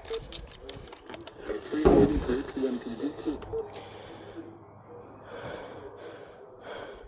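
A person's voice: a brief wordless vocal sound about two seconds in, over faint room noise with scattered clicks and a low hum.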